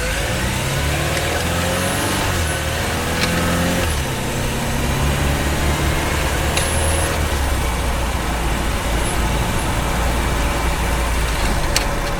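Honda Freed Hybrid powertrain heard from inside the engine bay while driving at city speed: a whine rising in pitch in the first few seconds as the car picks up speed, then a steady low drone with road noise.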